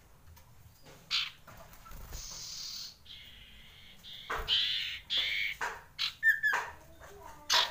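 Common iora singing: a string of short chirps and slurred whistles, with harsher, drawn-out notes between about two and four seconds in and a louder run of notes a little after that.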